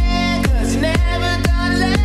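Electronic dance remix playing as background music, with a steady four-on-the-floor kick drum at about two beats a second under sustained synth chords and a melody line.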